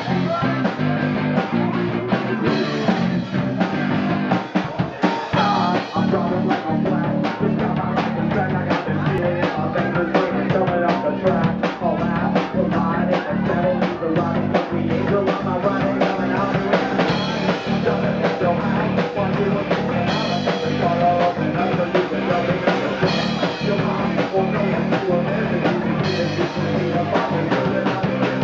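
Live rock band playing: drum kit keeping a steady beat under electric guitars and a singing voice.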